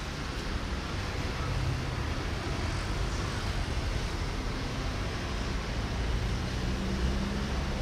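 Diesel locomotive hauling a container freight train, its engine giving a steady low drone and rumble that grows slightly louder as it approaches.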